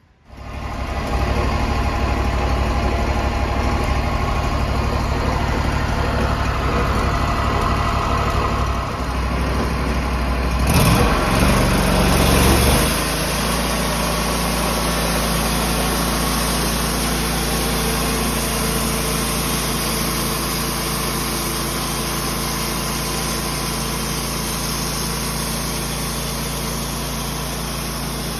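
An engine running steadily, growing louder with a shifting pitch about eleven seconds in for a couple of seconds, then settling back to a steady run.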